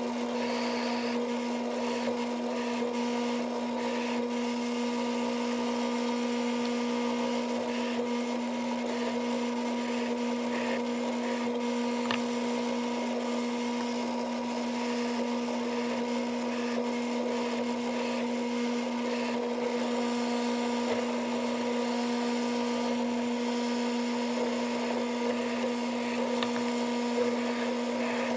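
Drill press motor running steadily at about 570 RPM with a steady hum, turning a zip-tied 1-inch wire cup brush that scrubs a light hiss with faint ticks against the metal probe block as it engine-turns the surface.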